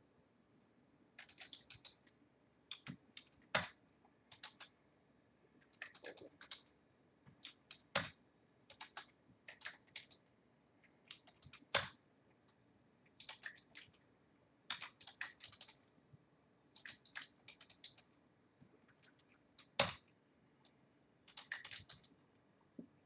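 Computer keyboard being typed on, faintly, in short bursts of keystrokes, with a single louder key strike every few seconds.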